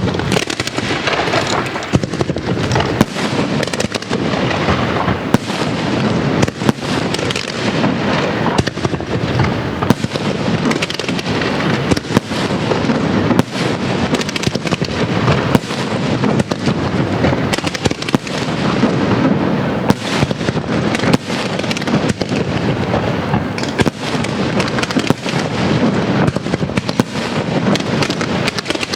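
A fireworks castillo firing without a break: a dense, continuous barrage of bangs over a steady crackle.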